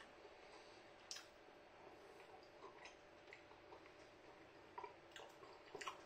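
Near silence with a few faint, irregular clicks and scrapes of a metal fork on a ceramic plate, and quiet chewing.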